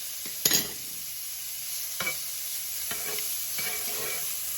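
Steak frying in butter in a hot pan, sizzling steadily, with a sharp knock about half a second in and a lighter one about two seconds in.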